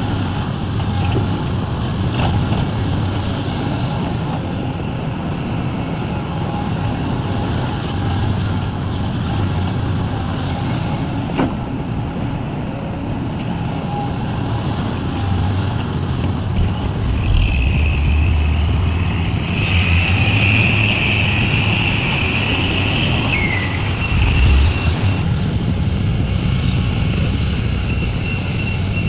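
Diesel engines of heavy earthmoving machinery running with a steady low rumble. A single sharp knock comes a little before the middle, and a high squealing whine lasts several seconds after it.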